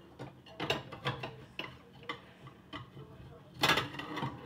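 Light clicks and knocks of dishes and utensils being handled in a kitchen, a few separate taps followed by a denser clatter about three and a half seconds in.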